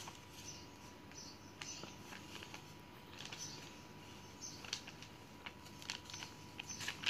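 Faint, scattered light ticks and rustles as a hand sprinkles toppings over batter in a pan, with a few small taps near the end.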